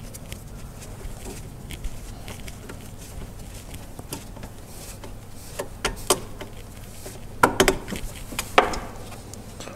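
Light clicks and knocks of a hand tool and gloved hand tightening a hose clamp on a supercharger intake hose, with a few sharper clinks in the second half, over a low steady hum.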